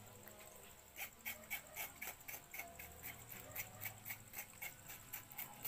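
Knife scraping the scales off a snake's skin in quick, regular strokes, about four a second, starting about a second in.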